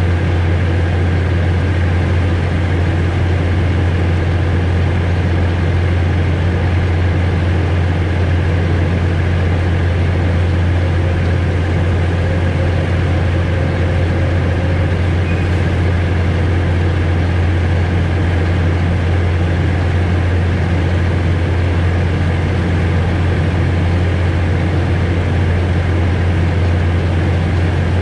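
Steady low engine drone of the Alishan Forest Railway train, heard from the cab, holding an even level and pitch throughout.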